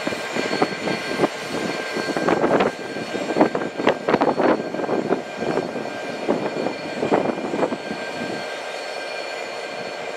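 Electric multiple unit passing, with a steady whine from its motors and irregular clacks of its wheels over rail joints and points.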